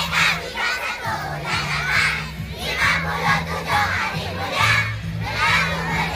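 A large crowd of schoolchildren shouting and cheering together in loose overlapping waves, with steady low notes running underneath.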